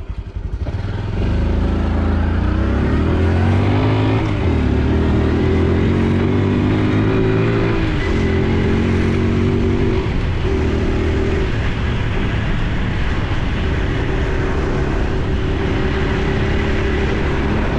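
Honda Super Cub C125's single-cylinder four-stroke engine pulling away about a second in. The revs climb and drop back at three upshifts, near 4, 8 and 10 seconds in, then hold steady at a cruise.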